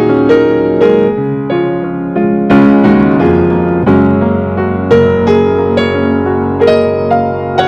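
Background music: a gentle piano melody with struck notes and sustained chords.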